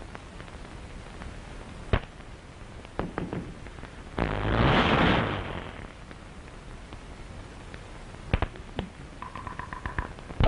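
Early sound-cartoon effects for a magic transformation on a hissy mono soundtrack. A sharp crack comes about two seconds in, then a few pops, then a loud hissing burst lasting about a second. More scattered pops and a brief steady tone follow near the end.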